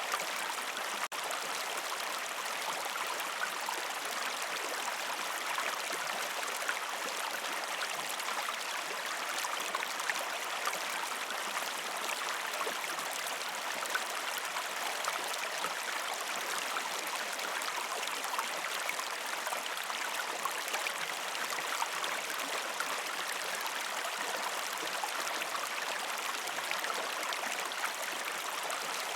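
A gentle river stream flowing over rocks: a steady rush of running, babbling water. There is a momentary dropout about a second in.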